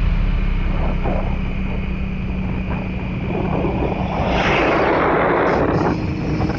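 A vehicle running along a road with a steady low rumble, and a louder rush of noise from about four to six seconds in.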